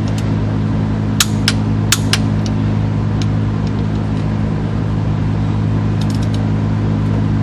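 Steady low machine hum with a pulsing rumble underneath. About a second in come four sharp metallic clicks in quick succession, then a few fainter ticks, from a long torque wrench being worked on a diesel engine's connecting-rod cap bolts.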